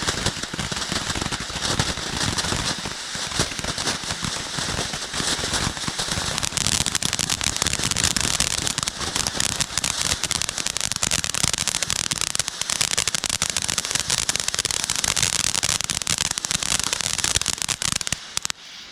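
Consumer ground firework going off in a long, dense run of rapid crackling pops over a hiss, then cutting off suddenly near the end.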